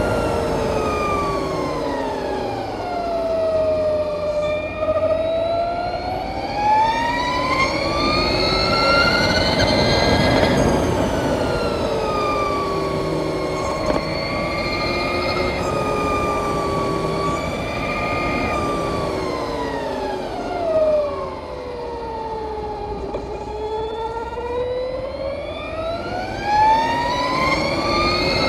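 2020 Harley-Davidson LiveWire electric motorcycle's drive whine, a siren-like tone with several overtones that rises and falls with road speed: it falls over the first few seconds, rises, holds fairly steady through the middle, falls again and climbs near the end. Steady wind and tyre noise run underneath.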